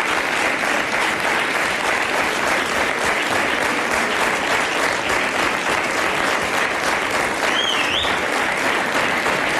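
Studio audience applauding steadily, with a short wavering high tone near the end.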